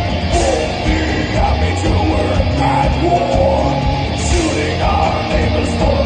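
Heavy metal band playing live: a singer's voice over distorted electric guitar, bass guitar and drums.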